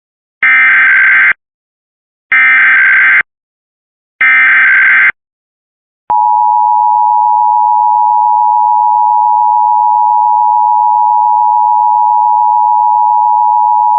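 Emergency Alert System tones: three short bursts of SAME header data, each a harsh buzzing screech about a second long with a second's gap between them. Then the EAS two-tone attention signal (853 and 960 Hz together), a steady tone held for about eight seconds that cuts off abruptly near the end.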